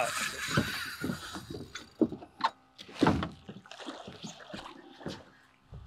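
Water splashing and sloshing against the side of a small fishing boat as a hooked redfish fights close to the hull. The splashing comes in irregular bursts, with a few sharper splashes about two and three seconds in.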